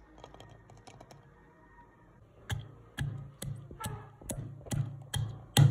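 Wooden pestle pounding garlic cloves and ginger in a wooden mortar: a few faint light clicks as the cloves drop in, then from about halfway through, regular dull knocks about two a second, growing louder.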